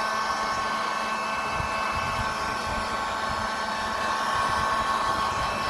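Hot air gun blowing steadily: a constant rush of air with a steady high whine, used to heat the Galaxy S9+ back cover and soften its adhesive before prying it off.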